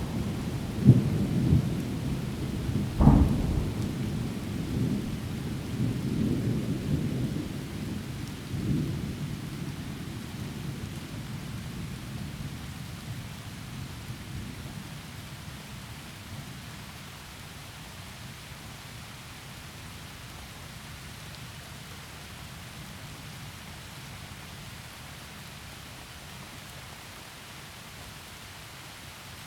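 Thunder rolling and fading over steady heavy rain, with two sharp cracks about a second and three seconds in. The rumble dies away over the first half, leaving only the even hiss of rain falling through trees.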